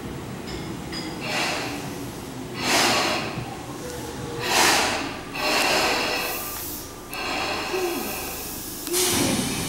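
Tobu 10030-series six-car electric train pulling into the platform and braking to a stop, its air brakes letting off repeated bursts of hissing, each about a second long, over a low rumble of the train.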